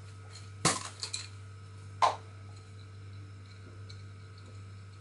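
A few sharp clinks and knocks of small hard objects being handled: a quick cluster about two-thirds of a second in, then a single one about two seconds in, over a steady low hum.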